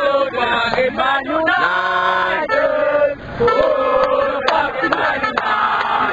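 A group of football supporters, mostly men, singing a terrace chant together in long held notes, with a few sharp hits in the second half.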